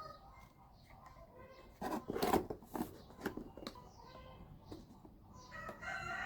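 Cardboard being cut with scissors and handled: a run of sharp snips and crinkles, loudest about two seconds in, with smaller clicks scattered around them.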